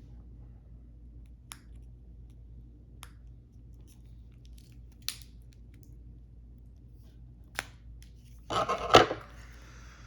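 Tarot deck packaging being slit open with a folding blade: a few light clicks, then a loud scratchy cutting sound of under a second near the end.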